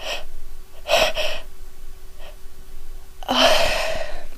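A woman's heavy, gasping breaths between sneezes set off by sniffing a sneeze-inducing soap: a sharp breath about a second in, and a longer, louder one near the end.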